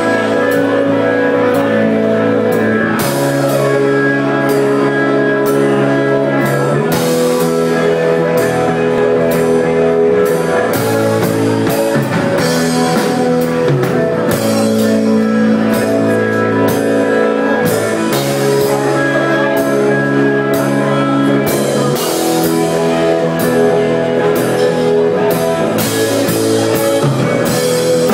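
Live rock band playing loud, with electric guitars and a drum kit.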